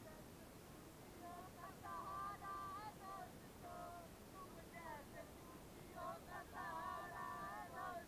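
Faint high-pitched voices singing or chanting in short phrases, over a low steady background noise.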